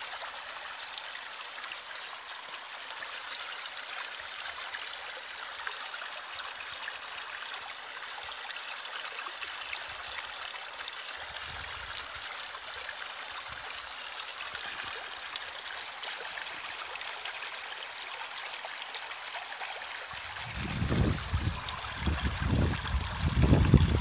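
Shallow stream running and trickling over stones, a steady rush of water. Low rumbling bumps come in for the last few seconds.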